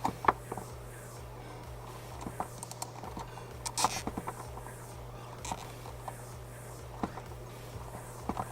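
Scattered small clicks and taps of wires and plastic parts being handled on a workbench, with a brief rasp about four seconds in, over a steady low hum.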